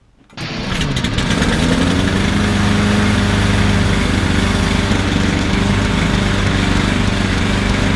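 A walk-behind lawn mower's small single-cylinder engine, running on melted lard in place of motor oil in its crankcase, starts about half a second in, its speed rising over a second or so, then runs steadily.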